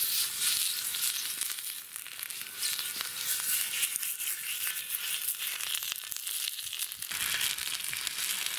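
A lump of fat rubbed over a hot steel harrow-disc griddle, sizzling and crackling as it greases the heated metal before cooking.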